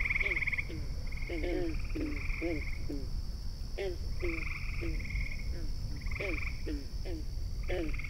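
Frogs calling in a farm ambience recording: short low croaks several times a second, with buzzy trills higher up every second or so, over a steady high hum and a lot of low bass rumble.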